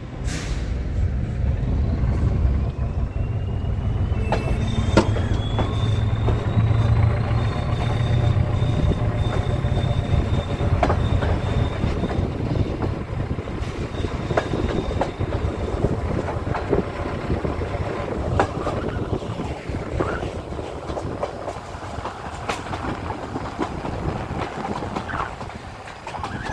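Regional passenger train hauled by an SU42 diesel locomotive pulling away and gathering speed: a low diesel rumble, strongest in the first half, with a whine that rises over the first few seconds and then holds steady. Later the rumble eases and wheels click over rail joints and points, heard through an open carriage window.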